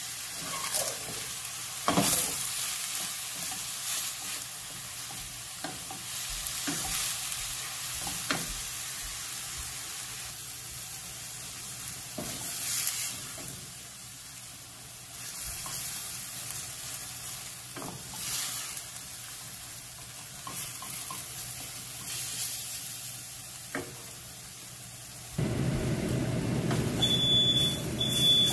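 Ground turkey and chopped onions sizzling in a hot stainless-steel skillet, with a wooden spoon breaking up and stirring the meat, knocking and scraping against the pan now and then. Near the end a steadier, lower noise comes in, and three short electronic beeps sound.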